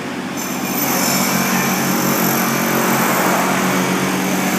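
A machine running with a steady hum, getting louder about a second in.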